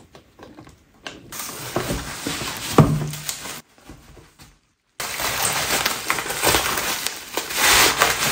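Cardboard shipping box being cut open and its flaps pulled back: scraping, rustling cardboard with a few knocks, a brief break in the middle, then louder crinkling and rustling of packaging as an item is lifted out.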